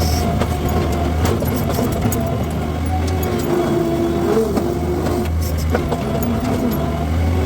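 Skid steer with a brush cutter attachment running steadily under work, a constant engine drone with a whine that wavers in pitch over it, and a few sharp cracks.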